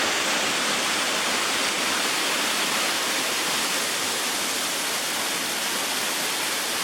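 Waterfall pouring steadily, an even rushing hiss heard from close by at its base.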